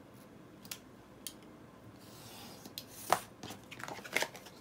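A sheet of plain pattern paper being handled and folded in half: a few light clicks, a soft rustle, then crisp crackling and clicks, the sharpest about three seconds in.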